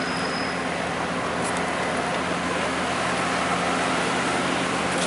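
An engine running steadily, a low even hum over street traffic noise.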